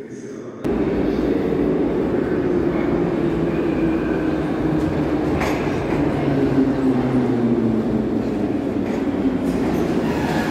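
Blue 81-717-type metro train pulling into the station and braking: a loud rumble of wheels on rail with a motor whine that falls steadily in pitch as it slows. The sound starts abruptly about half a second in.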